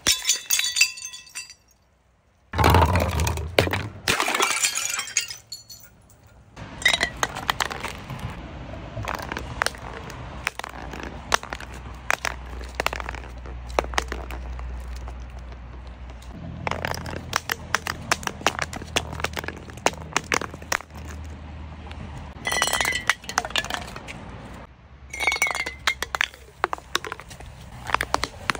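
Glass bottles and jars tumbling down concrete steps, clinking and knocking against the edges over and over, with glass breaking. A loud crash comes about three seconds in, then long runs of rapid clinks.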